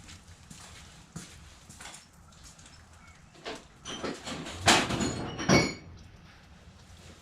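Metal tools and engine parts clinking and clanking by hand: a few light clicks, then two louder metallic clanks that ring briefly, about two thirds of the way through.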